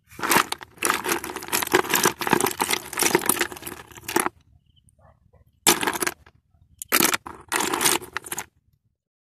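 A hand stirring through a bucket of horn snails, the hard shells clattering and clicking against each other and the plastic bucket: a dense run for about four seconds, then three shorter bursts.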